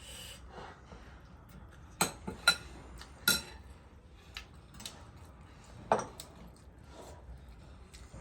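Cutlery clinking against a dish while eating: four sharp clinks, some with a brief ring, three close together in the first half and one more a little later.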